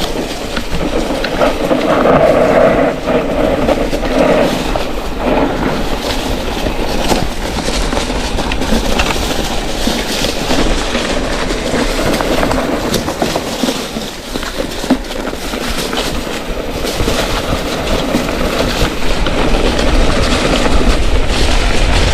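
Mountain bike rolling fast down a steep, rocky trail: tyres crunching over stones while the bike rattles with a continuous stream of clicks and knocks.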